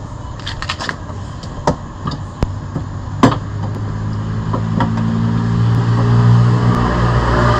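Sharp plastic clicks and snaps as the side marker light is pushed out of the fender from behind the liner, the loudest about three seconds in. From about halfway a low, steady engine hum swells up and is loudest near the end.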